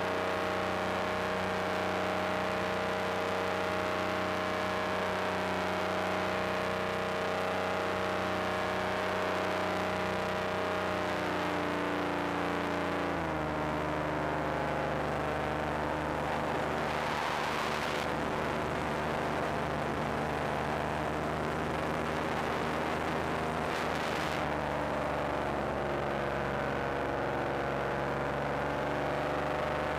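Paramotor engine and propeller running steadily in flight. About thirteen seconds in, the engine note drops a step to a lower pitch, and two brief rushes of wind noise follow in the second half.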